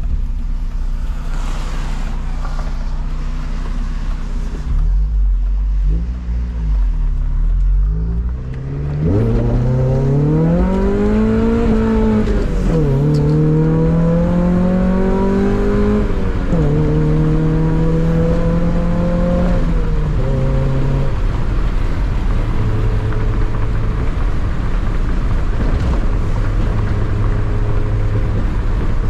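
Car engine with a manual gearbox pulling away about nine seconds in. It revs up with rising pitch and drops sharply at each of two upshifts, then holds a steady cruise and settles to a lower, even hum for the last third. Before that there is only a low, uneven rumble at low speed.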